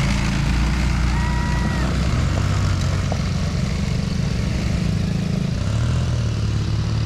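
Small ATV engine running steadily at low revs, its pitch shifting about six seconds in as the throttle changes.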